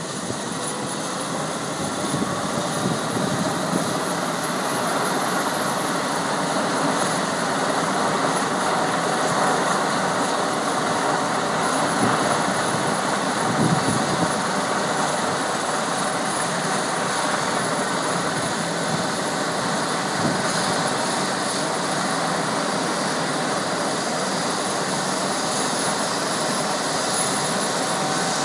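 Air ambulance helicopter's engines and rotors running steadily, growing a little louder over the first few seconds and then holding even.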